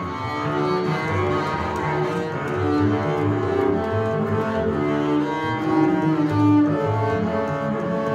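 Two double basses bowed together in a duet, overlapping held notes, one part low and the other in a higher register.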